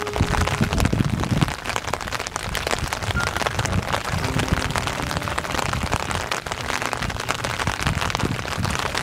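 Steady rain falling on the standing water of a flooded field: a dense, even patter of drops.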